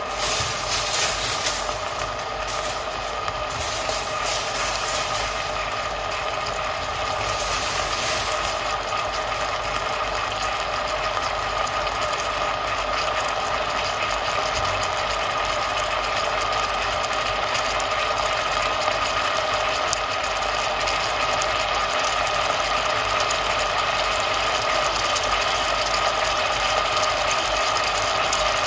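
Chopped onion, pumpkin and carrot sizzling and crackling as they cook in a stainless steel pot on the hob, slowly growing louder, over a steady whine from the hob.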